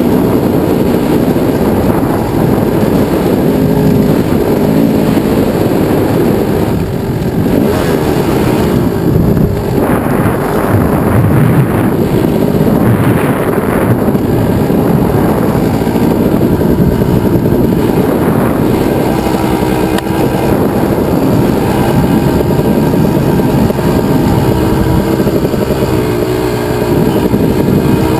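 1998 Kawasaki KX250 single-cylinder two-stroke motocross engine revving up and down under load while riding, its pitch rising and falling as the throttle is worked, with brief drops around seven and ten seconds in.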